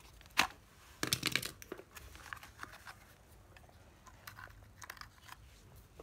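Handling noise: a sharp click, then about half a second of crackling rustle, then a few light scattered clicks as a used cordless screwdriver is handled.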